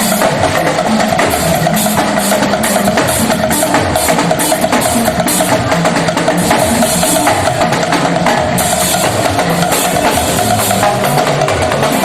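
Live church band music driven by busy drums and hand percussion, with rapid rhythmic strokes, a steady shimmer of high percussion, and one held tone sustained underneath.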